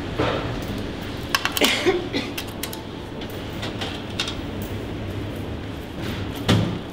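Indoor room tone of a small food shop: a steady background hum, with a quick cluster of sharp clicks and a rustle about one and a half to two seconds in, and a single thump near the end.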